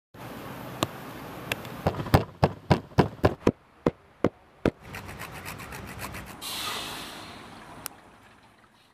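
Wooden pestle pounding chilies, shallots and garlic in a wooden mortar: a dozen or so sharp knocks at about three a second, then lighter, quicker taps. Near the end, coconut milk is poured into a steel wok, a short splashing rush.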